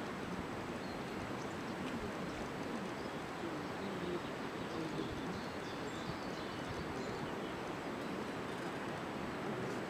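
Open-air field ambience: a steady background hiss with a few faint, distant bird chirps.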